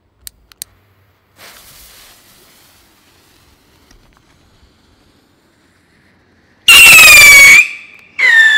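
Funke 3-stage Triller rocket being lit: two faint clicks, then a soft hiss as it ignites and lifts off. Its whistling charge then gives a loud, piercing howl with overtones that slides slightly down in pitch for about a second. Near the end a second, lower howl follows as the next of its three whistle stages.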